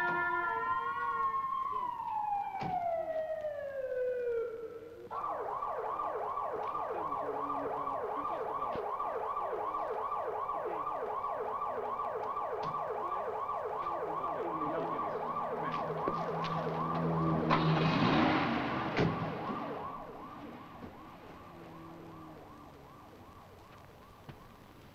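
Police siren: a slow wail that rises and then falls away over the first few seconds, switching about five seconds in to a fast, repeating yelp. A loud rushing noise swells and passes about eighteen seconds in, and after about twenty seconds the yelp goes on more quietly.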